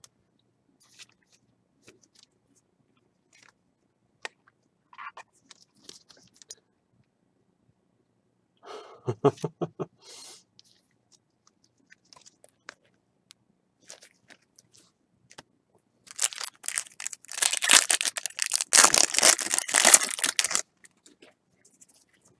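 Foil wrapper of a baseball card pack crinkling and tearing open for about four seconds, the loudest sound here. Before it come faint scattered clicks and rustles, and a brief low buzzy sound about nine seconds in.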